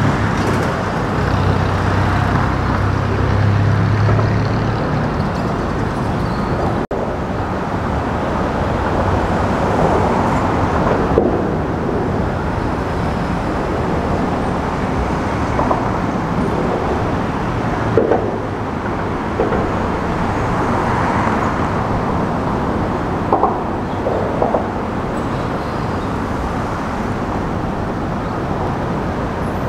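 Steady road traffic noise, with a heavier engine rumble for the first few seconds and a few short, higher-pitched sounds scattered through the latter part.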